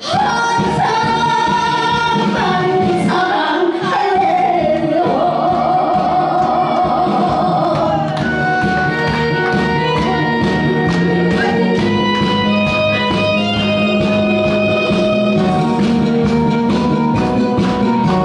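A woman singing live into a microphone over backing music, holding long notes with a wide vibrato; about eight seconds in the voice stops and the backing music plays on as an instrumental break.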